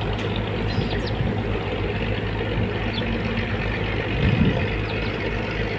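An engine running steadily with a constant low drone, and a brief louder low rumble about four seconds in.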